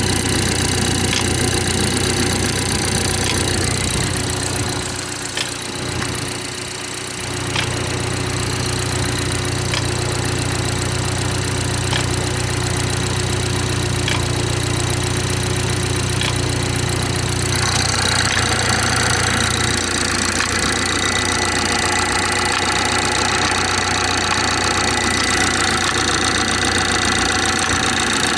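BMW 430i xDrive's B46/B48 four-cylinder engine running on a cold start in cold weather, with the weird noise the owner reports at cold start. Faint clicks come about every two seconds through the first half, the sound dips briefly about five seconds in, and a higher rushing noise joins about eighteen seconds in.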